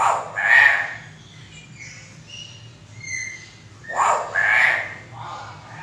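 Common hill myna calling: two loud, harsh squawks about four seconds apart, with short whistled notes in between.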